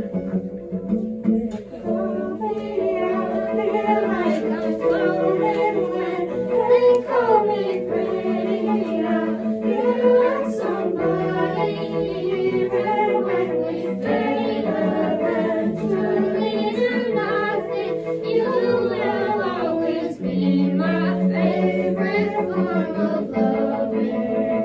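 A small band playing a song live: singing over keyboard and bowed strings (violin and cello), with low notes held steadily beneath the melody.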